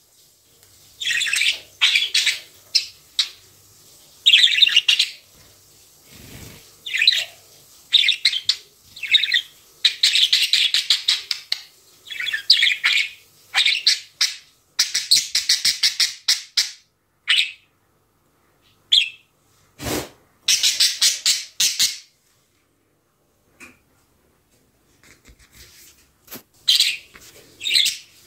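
Budgerigar chirping and chattering in rapid bursts of high notes, breaking off now and then and falling quiet for a few seconds near the end.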